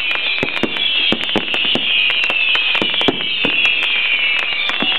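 Fireworks going off in a dense run of sharp cracks and pops, over a continuous high hiss.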